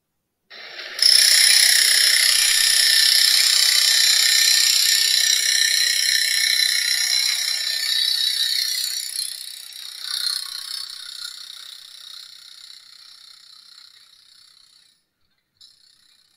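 Construction-site machine noise: a loud mechanical rattling whir that starts suddenly about half a second in, then fades away slowly, with a short burst again near the end.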